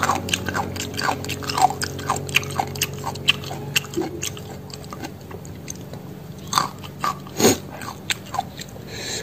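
A person chewing a mouthful of crunchy pounded morning-glory (water spinach) salad, a steady run of crisp crunches with a few louder ones near the end.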